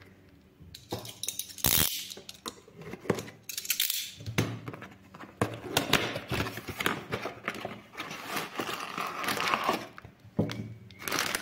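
Handling noise of a small cardboard box being opened by hand: flaps and lid scraping, tapping and clicking, with one sharp crack about two seconds in. Near the end, a clear plastic bag of circuit boards and wires is handled and rustles.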